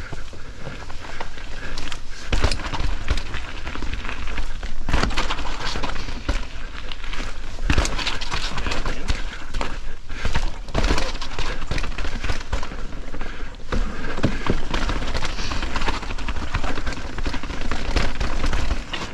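Mountain bike ridden through a rough trail section of drops and rolls: a continuous rumble of tyres on the trail, broken by frequent sharp knocks and rattles, with heavier hits every few seconds as the bike drops and lands.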